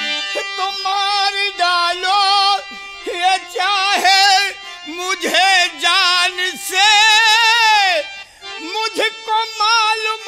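Bhojpuri nautanki stage music: a singer holding long, wavering notes with heavy vibrato, the pitch falling away at the ends of phrases, over harmonium accompaniment.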